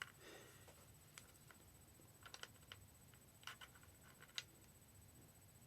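Faint, scattered clicks and taps of an Apple wireless keyboard being handled, a few light plastic-and-metal knocks spread over several seconds, the sharpest two a little past halfway.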